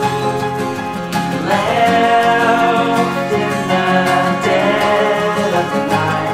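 Background music: an acoustic country-style song with plucked strings.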